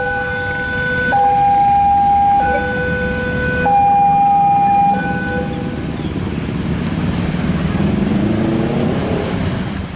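A two-tone hi-lo siren alternating between a higher and a lower note about every 1.3 seconds, stopping about five seconds in. Then a low, growing rumble of a heavy vehicle passing.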